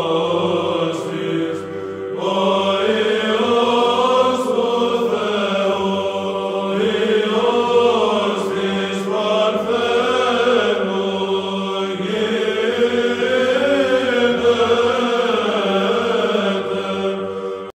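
Byzantine chant sung by a choir of male monastic voices: a slow melody winding over a steady held drone note (the ison).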